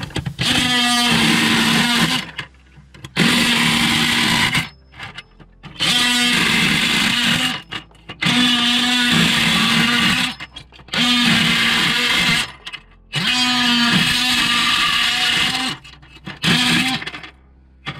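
DeWalt XR cordless oscillating multi-tool with a metal-cutting blade running in about seven bursts of one to three seconds, each stopping sharply, as it cuts plastic PCI slot connectors and their brass or copper pins off a circuit board.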